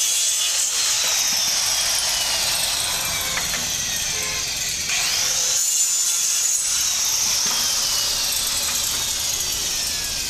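Electric power tool running under load, its high whine slowly sinking in pitch as it works. About five seconds in it spins back up and sinks again under load.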